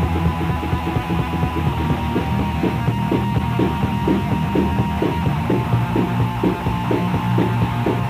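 Raw black metal rehearsal recording from 1996: a loud, dense band sound with a regular beat from about two seconds in. The recording is dull, with hardly any treble, and a steady hum-like tone runs through it.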